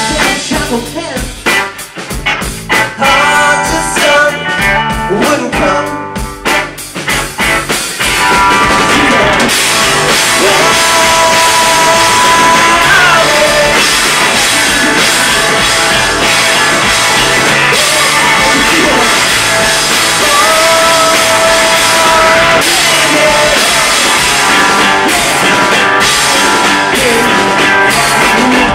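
Live rock band with drum kit and electric guitars playing. For the first eight seconds the band hits in short stop-start accents, then it comes in full and loud, with a held melody line whose notes bend in pitch.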